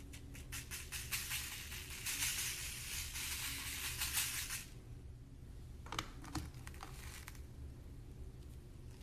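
Slime being pressed and worked, its trapped air bubbles popping in a dense run of small clicks and pops for about four seconds, then a few separate pops a second or two later.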